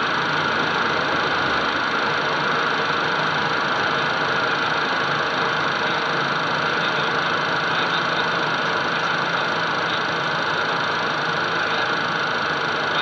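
Steady cockpit noise of a Cessna Citation twin-engine business jet on approach with its landing gear down: engine and airflow noise heard from inside the cockpit, a constant rushing sound with a low hum beneath it.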